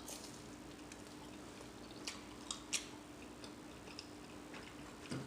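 Faint close-up mouth sounds of someone chewing a crunchy taquito: scattered short wet clicks and smacks, a few louder ones about two to three seconds in, over a faint steady hum.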